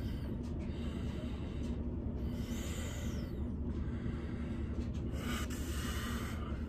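Steady low room hum with light handling rustle, and a short hiss about five seconds in.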